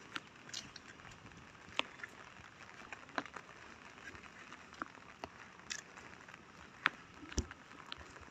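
Light rain and water drips pattering on leaves and wet ground: irregular sharp taps over a soft steady hiss.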